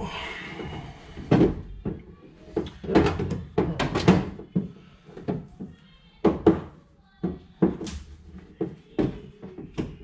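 A run of irregular knocks and clunks, a dozen or so, some sharp and loud.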